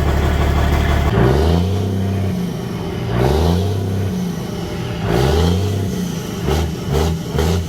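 Semi truck diesel engine running through a straight exhaust pipe. It idles steadily, then about a second in it is revved several times, each rev rising and falling in pitch; the last three near the end are short, quick throttle blips.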